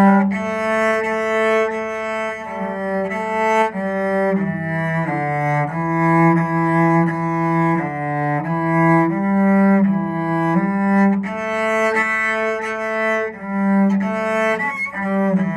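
Cello playing a slow melody of smoothly bowed notes, each held for half a second to a second or so before moving to the next.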